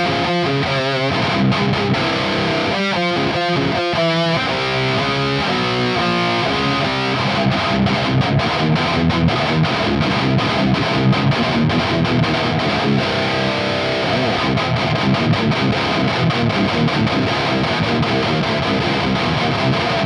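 Electric guitar with an active pickup played through a Laney GH100TI all-tube amp head on high-gain distortion: choppy, stop-start riffing for the first several seconds, then denser sustained riffs and chords. The high frequencies are really ugly.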